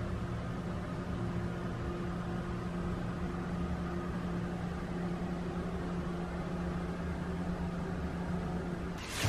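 Steady electric motor hum with a low drone, typical of a shower room's ventilation fan running. A brief loud burst of noise rises at the very end.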